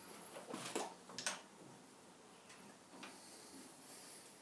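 A few faint metal clicks and ticks as the lathe's tailstock chuck is tightened by hand onto the boring bar.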